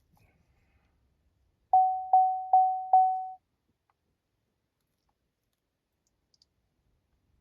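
Four quick electronic chimes at one steady pitch, about 0.4 s apart, each sounding and fading away, as the engine trouble codes are erased from the truck with a scan tool.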